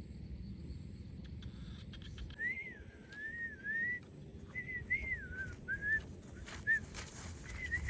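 A string of about eight short whistled notes, each a single clear tone that rises and falls, starting about two and a half seconds in, over a faint low background hum.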